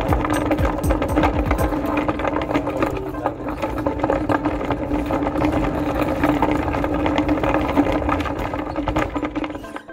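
A steady mechanical hum from a running motor with continuous low rattling, dropping out abruptly at the very end.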